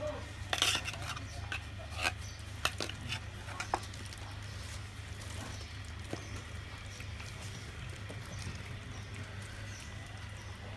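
A few sharp clinks and taps of utensils against dishes in the first four seconds, then only a steady low hum.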